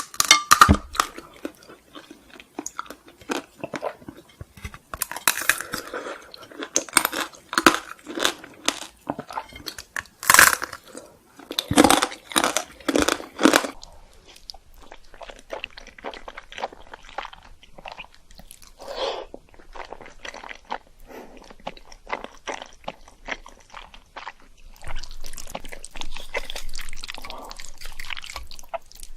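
Close-miked crunching and chewing of Korean sweets, in eating-sound ASMR. The biggest crunchy bites come in a cluster in the first half, followed by quieter, sparser chewing.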